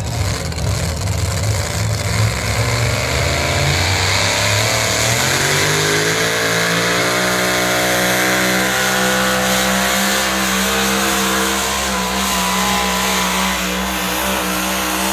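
Pulling truck's engine at full throttle dragging a weight sled: a low, rough rumble that climbs in pitch about five seconds in, then holds at steady high revs.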